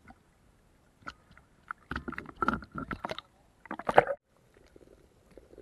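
Choppy sea water splashing and slapping against a camera held at the waterline, in irregular bursts. The bursts are loudest about four seconds in, then drop suddenly to a faint low wash.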